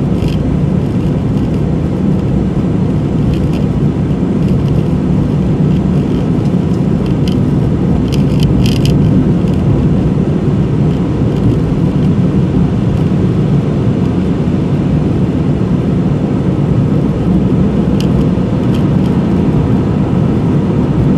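Steady road and engine noise heard from inside a car's cabin while driving through a road tunnel, with a few faint short clicks, several close together near the middle.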